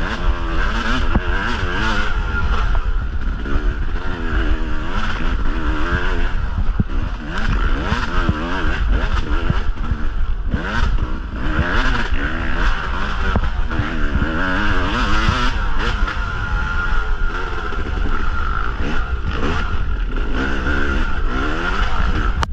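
Yamaha YZ250 two-stroke dirt bike engine being ridden hard, revving up and down over and over as the throttle is worked, with occasional knocks.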